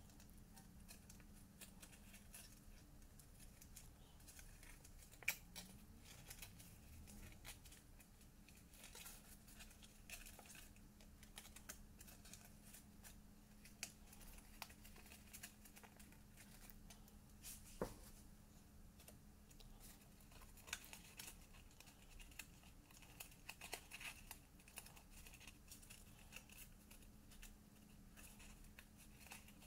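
Faint rustling and small clicks of cardstock being bent and its glued tabs pressed down by hand, with a few sharper ticks, over a steady low hum.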